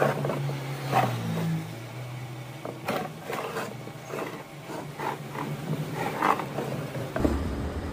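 A small engine running steadily, with several sharp knocks or clicks over it; its note shifts lower near the end.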